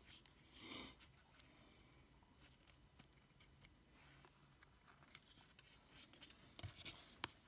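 Near silence with faint scattered clicks of a small circuit board and wires being handled in the fingers, a little sharper one near the end. One short soft hiss just under a second in.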